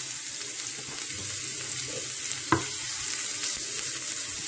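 Chopped onion, green chilli and ginger sizzling in hot sunflower oil with mustard seeds in a non-stick frying pan, stirred with a wooden spatula. A single sharp click halfway through.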